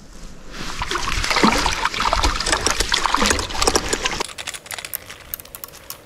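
Water splashing and trickling, loud and busy, that stops abruptly about four seconds in; a few faint clicks follow.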